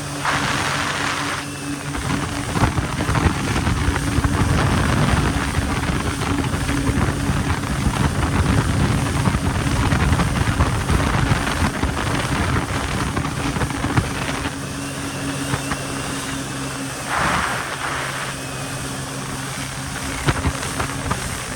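Yamaha jet ski's engine running steadily under way, with rushing water and wind noise that swells for several seconds in the middle. Short bursts of spray come at the start and again about three quarters through.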